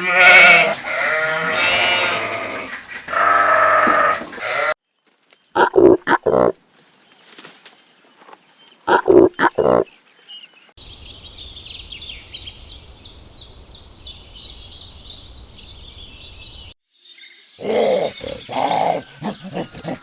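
A string of different animal calls cut one after another. First comes a long, wavering pitched call lasting several seconds. Then come a few short, loud calls in two quick groups, then a fast run of high chirps at about three a second for around six seconds, and near the end more short pitched calls.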